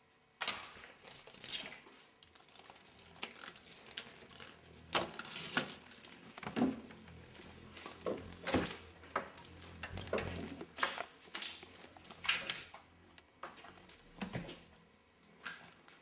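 Irregular clicks, rattles and rustles as a cat scrambles after a moth by the window blinds, with the blinds and the cat's paws making quick scuffling knocks.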